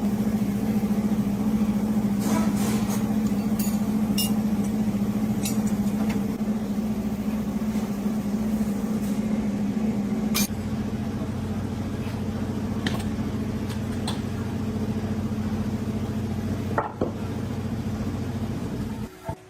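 A machine motor running with a steady hum. It starts abruptly, changes slightly in tone about ten seconds in, and stops near the end, with a few metallic clicks and clinks over it.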